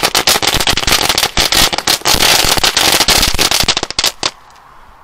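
UFO-skott ground firework spinning on the ground, giving off dense, rapid crackling that thins to a few last pops about four seconds in and then stops.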